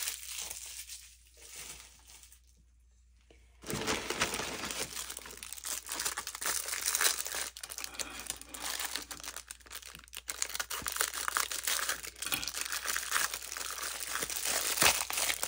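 Thin clear plastic bag crinkling and crackling as a silicone mold is handled and worked out of it. A few faint rustles at first, then continuous crinkling from about three and a half seconds in.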